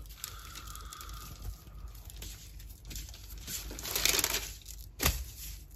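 Parchment paper crinkling and rustling under a log of cinnamon-roll dough as it is rolled up by hand, growing louder about four seconds in, with a single sharp click near the end.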